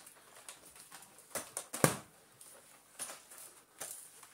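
Scattered hard plastic clicks and knocks from a Shark Speed Lift-Away vacuum cleaner's parts being handled and tugged at, as a part that will not release is pulled on. The sharpest knock comes a little under two seconds in.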